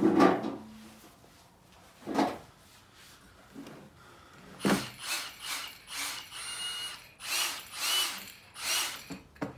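A knock as the carry case is handled at the start, then an Einhell TE-CD 18 Li-BL 18 V brushless cordless drill run in a string of short trigger pulls through the second half, some with a high whine.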